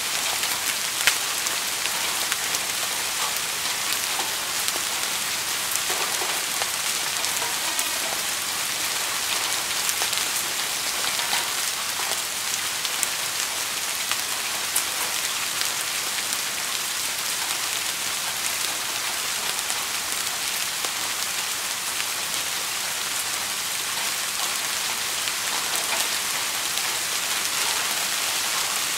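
Steady rain falling on a surface: an even hiss of rainfall with the patter of individual drops landing close by.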